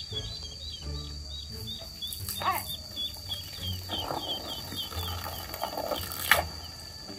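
Ducklings peeping in a rapid run of short high calls, then water from a garden hose splashing onto a plastic tarp for a couple of seconds, with a single sharp tap near the end.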